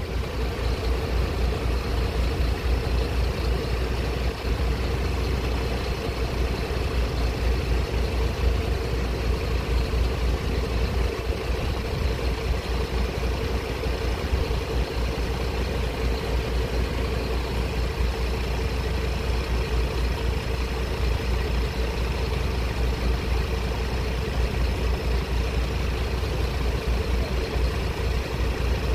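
Road vehicle engines idling steadily: a continuous low rumble with a steady mid-pitched hum over it.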